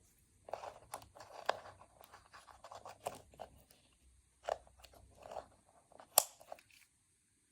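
Small plastic toy parts and packaging being handled, with irregular crinkling and light clicks and one sharp plastic click about six seconds in.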